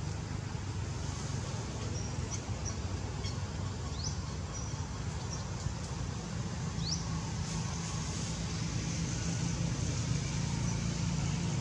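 Outdoor background noise: a steady low rumble, with a few short, faint high chirps over it, two of them quick rising ones about four and seven seconds in.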